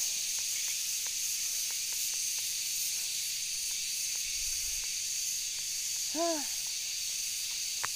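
Steady, high-pitched insect chorus, typical of cicadas in tropical forest. About six seconds in, a man makes one short voiced sound.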